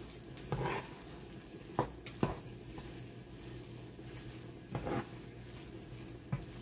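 Fried rice being stirred in a pan: a utensil scrapes and knocks against the pan about five times over a faint sizzle, with a steady low hum underneath.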